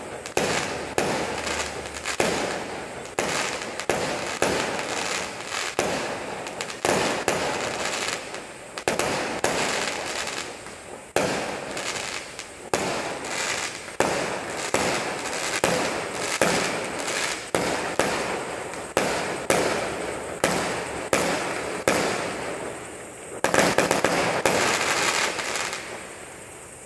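Fireworks going off in a long series of sharp bangs, about one or two a second, each one echoing as it fades. Near the end comes a few seconds of dense, unbroken banging, then the bangs stop.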